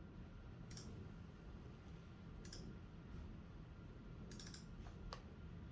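A few faint, sharp clicks, one near the start, one about two and a half seconds in and a quick pair a little past four seconds, over quiet room tone.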